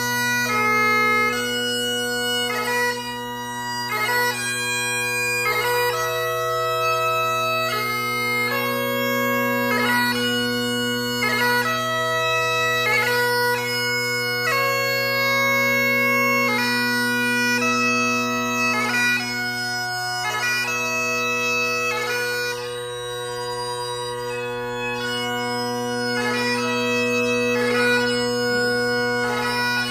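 Great Highland bagpipe played solo: steady bass and tenor drones under a chanter melody of held notes, broken by quick grace-note flourishes between them.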